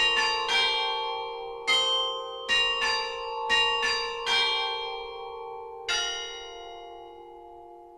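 Tower bells ringing: about nine strokes of bells at several pitches in an uneven rhythm, the last about six seconds in, then the sound hangs and fades away.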